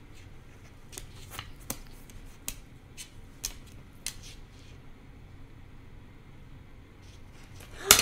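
Male eclectus parrot's beak clicking and tapping at a microphone: about a dozen sharp, irregular clicks over the first four seconds, then a pause, and one louder click with a brief squeak near the end.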